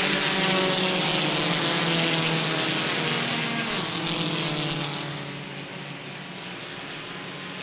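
A pack of compact touring race cars running hard just after the green flag, many engines at once, loud at first and dropping away about five seconds in.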